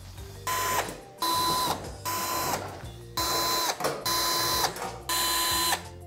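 Cordless electric screwdriver run in six short bursts of about half a second, each a steady whine that drops in pitch as the trigger is released: screws being driven out of the tumble dryer's sheet-metal back panel.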